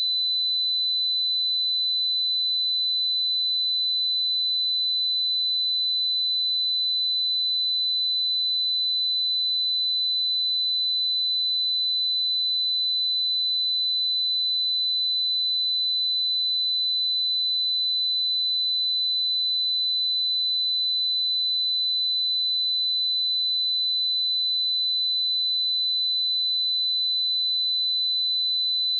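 A pure 4007 Hz sine-wave test tone, one steady high-pitched note held unchanged throughout.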